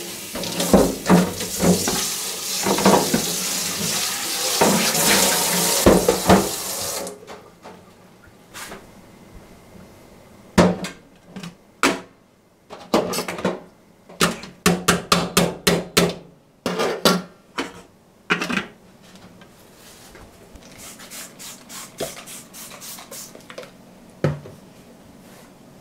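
Tap water running into a stainless steel sink while a glass and a metal colander are rinsed, with dishes knocking; the tap shuts off about a quarter of the way in. A quick run of clattering knocks of dishes handled in the sink follows, then fainter scattered ticks and rubbing near the end.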